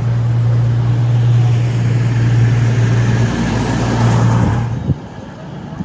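A train passing close at speed: a steady low hum under a loud rushing noise, which stops abruptly about five seconds in.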